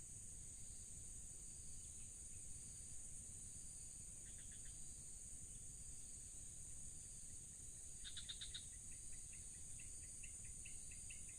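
Steady high-pitched drone of crickets and other insects. Short trains of chirps come about 4 s and 8 s in, and a fast run of repeated chirps begins about 9 s in.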